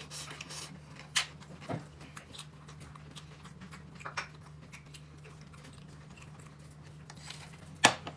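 Quiet handling noises: a few light clicks and knocks over a steady low hum, with one sharp, louder knock near the end.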